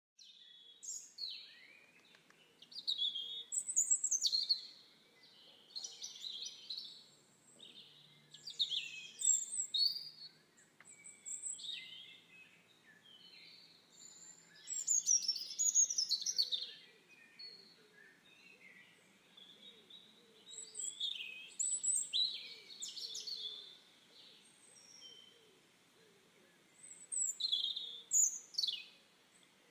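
Birds chirping and singing in short, high, sweeping calls, a new call every second or two.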